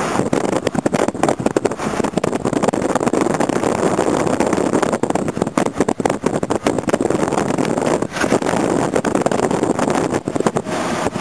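Loud, unsteady rushing noise from a moving car, with wind buffeting the microphone over the road and engine noise.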